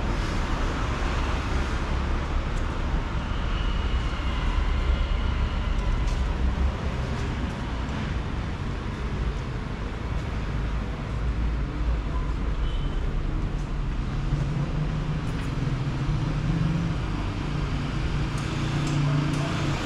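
City street traffic noise: a steady wash of passing cars with a low rumble, and a low engine hum that comes in during the second half.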